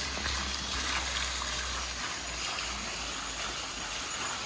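Steady rush of flowing, splashing water in a hot spring pool, with a low rumble that drops away about two seconds in.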